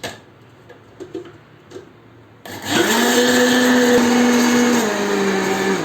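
Electric mixer motor starting about halfway through and running steadily for about three seconds while mixing liquid crêpe batter. Its pitch drops a little near the end, and then it stops. A few light clinks come before it starts.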